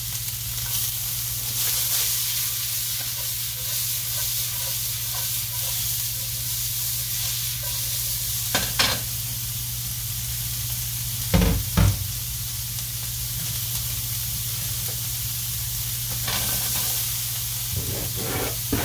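Chopped onions and green peppers sizzling in hot oil in a nonstick frying pan, a steady frying hiss. A few sharp knocks sound over it, the loudest two close together about twelve seconds in.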